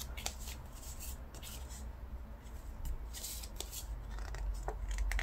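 Paper sticker sheets being handled and shuffled by hand: soft rustling and slipping of the sheets, with a few sharp little clicks and taps.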